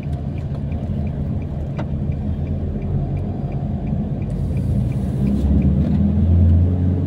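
Vehicle engine and road rumble heard from inside the cabin while driving, growing louder from about five seconds in as it speeds up. A faint light ticking repeats about three times a second.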